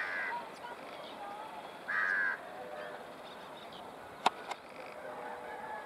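A crow cawing twice, harsh calls about two seconds apart, over faint bird chirps. A single sharp click about four seconds in.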